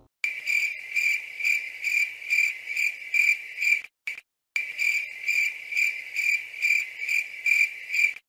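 Cricket chirping sound effect: one steady high-pitched chirp pulsing about three times a second. It breaks off cleanly for about half a second a little before halfway, then resumes.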